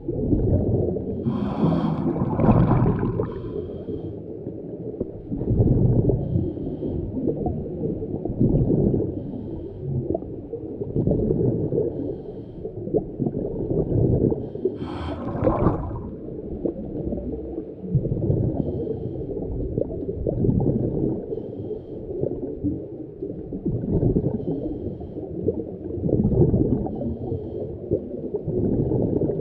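Underwater sound of a diver's breathing: bubbles rumbling and gurgling in regular pulses every two to three seconds, with two brighter hissing bursts, one near the start and one about halfway.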